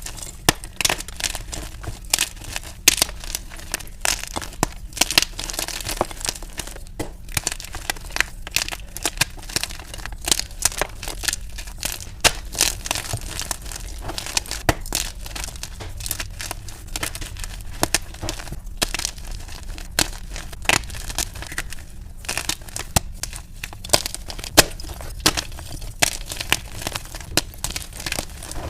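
Plain Jane gym chalk blocks being crushed and crumbled: a dense, unbroken run of crunches and crackles, several a second, sped up to double speed.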